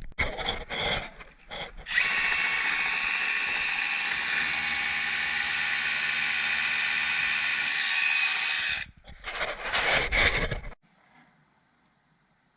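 Power drill running steadily for about seven seconds, then stopping and restarting in a few short bursts.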